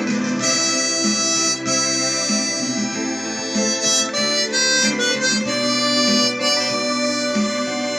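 Tombo Unichromatic chromatic harmonica playing a melody of held notes over a backing accompaniment.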